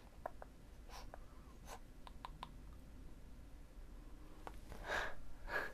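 Soft close-up scratching and ticking of a brush drawn across the camera, with two louder brushing swishes near the end.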